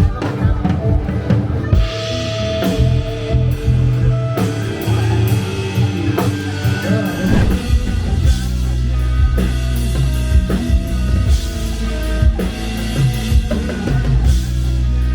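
Rock band playing instrumentally: drum kit with kick drum and rimshots over bass and electric guitar. The low bass gets heavier about halfway through.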